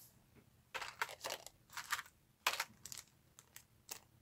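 Cardboard button cards and small plastic bags of buttons being handled, in a few short crinkling rustles with light ticks and taps in between.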